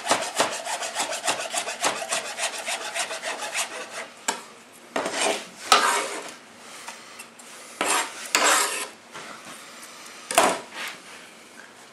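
Kitchen knife chopping curly parsley on a chopping board with a rocking, rolling action: a quick, even run of light taps for the first few seconds, then a handful of separate, slower strokes.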